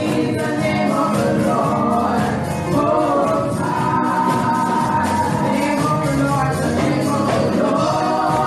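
A church praise team of women singing a gospel worship song together through microphones, over instrumental accompaniment.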